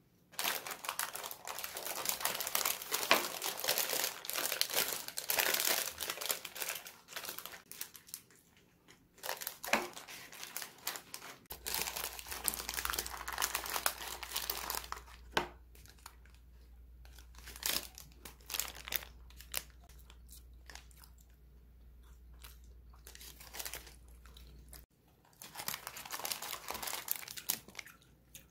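Brown paper burger wrapper crinkling and rustling as a burger is picked up and handled, with biting and chewing of the burger in between, and more wrapper crinkling near the end.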